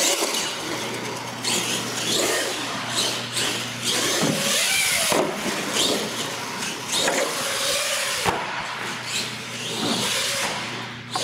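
Radio-controlled monster truck driving on a concrete floor, its motor and tyres rising and falling in pitch as it speeds up, slows and turns. A single sharp knock comes about eight seconds in.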